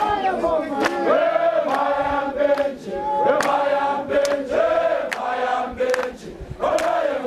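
A crowd of mourners singing together in chorus, holding long notes, with hand claps keeping the beat about once a second.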